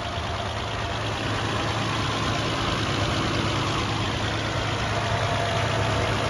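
1969 Opel Commodore A's straight-six engine idling steadily, running again now that fuel is reaching the carburettor.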